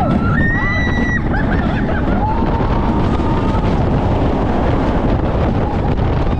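Heavy wind rush buffeting the microphone as a Giovanola hyper coaster train drops down its first hill at speed. Riders scream over it: a high scream about half a second in and a long, lower one about two seconds in.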